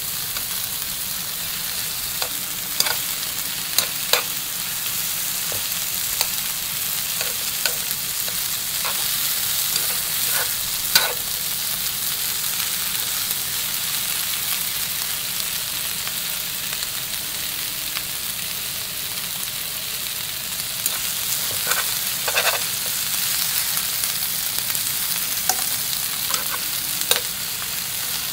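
Sausage and onion slices sizzling in a frying pan with a steady hiss, while tongs turning them give scattered clicks and taps against the pan.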